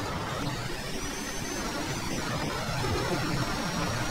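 Driving-game truck engine sound: a steady, noisy drone with a thin high whine that dips and rises a little in pitch.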